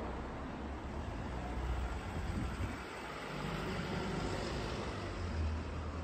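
City street ambience: steady traffic noise with a low rumble that swells twice.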